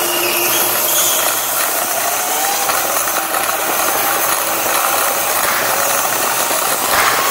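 Electric mountainboards riding hard: motor and drivetrain whine rising and falling with speed over a steady mechanical rattle from the wheels rolling on the track.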